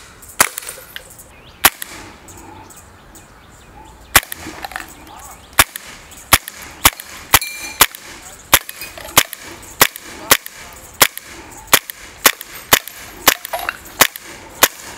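Beretta M92A1 CO2 blowback air pistol firing: two single shots, then a steady string of sharp shots about two a second from about four seconds in, each with the snap of the blowback slide.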